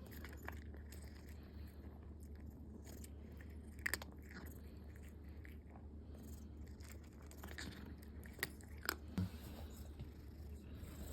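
A cat chewing and biting at its food: soft small crunches throughout, with a few sharper clicks about four seconds in and twice more near the end.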